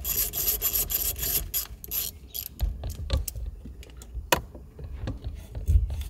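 A hand ratchet clicking rapidly for about two seconds as bolts are run in to hold a steering wheel on its hub, then a few scattered clicks and one sharp click a little past the middle. The bolts are only being snugged, not yet fully tightened.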